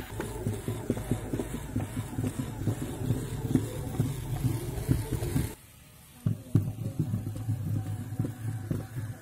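Small DC gear motor running with a steady hum while the popsicle-stick legs of a toy walking robot horse clatter quickly on a hard surface. The sound cuts out for about half a second just past the middle, then resumes.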